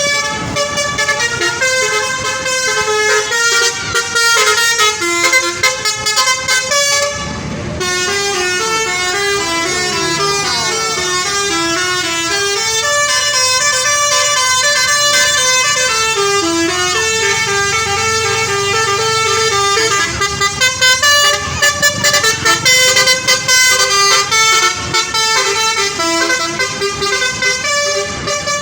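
Bus 'telolet' horn: a multi-tone musical air horn playing a tune of stepped notes over and over. The notes come in quick short bursts in the last third.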